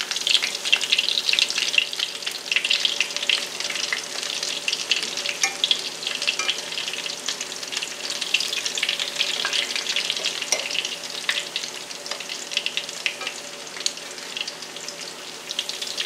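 Salmon patties frying in shallow oil in a cast iron skillet: a steady crackling sizzle as the patties are turned over with a fork.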